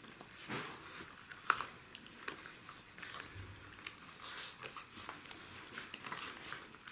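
Czechoslovakian wolfdog puppies chewing and tearing at a raw chicken: faint, irregular small clicks of biting and chewing, the sharpest about a second and a half in.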